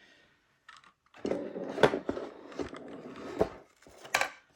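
Handling noise as an electronic device's parts are moved about on a work surface: scraping and rustling with several sharp clicks and knocks, the loudest near the end.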